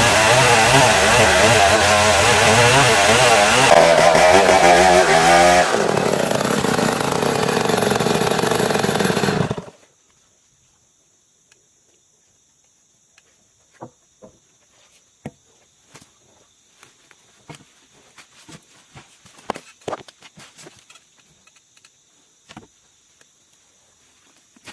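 An old chainsaw sawing Bornean ironwood (ulin), running hard with a wavering pitch. It drops to a lower speed about six seconds in and cuts off abruptly near ten seconds. After that come a faint steady high hum of insects and scattered light clicks and knocks.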